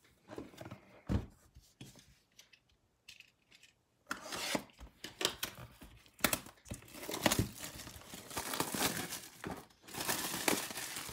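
Plastic shrink-wrap being torn and crinkled off a cardboard trading-card hobby box. Light handling knocks come first, then dense crackling tearing from about four seconds in.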